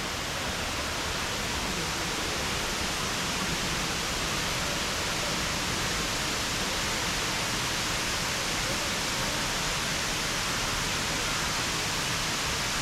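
Steady rushing water of a waterfall in full monsoon flow, heard as an even, unbroken noise.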